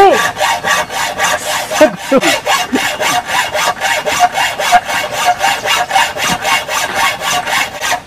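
Hacksaw cutting through steel rebar: steady back-and-forth rasping strokes, about four to five a second.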